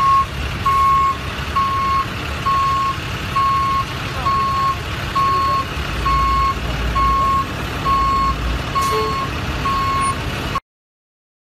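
Flatbed tow truck's backup alarm beeping steadily, one evenly repeated single-pitch beep, over the low rumble of the truck's engine. It cuts off abruptly near the end.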